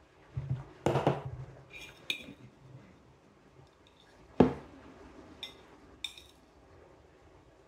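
Metal spoon clinking and scraping against a ceramic plate, with knocks of the plate on a wooden table as it is tilted to gather the last of the sauce. A single sharp knock about four and a half seconds in is the loudest sound, followed by two lighter ringing clinks.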